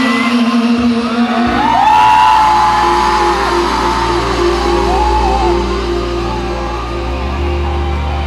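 Live concert music: a sustained chord comes in about one and a half seconds in and holds, while the audience screams and whoops over it.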